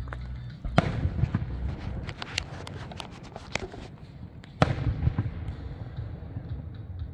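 Aerial fireworks bursting: a loud bang about a second in and another just past halfway, with a run of smaller crackles and pops between them, over a steady low rumble.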